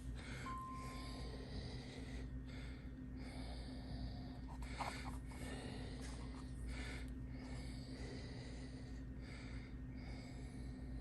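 A person breathing near the microphone, faint and regular, over a steady electrical hum.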